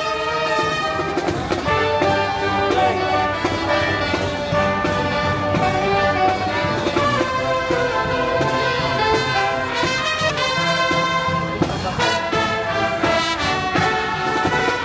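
Music led by brass instruments, trumpets and trombones playing a tune, steady and unbroken.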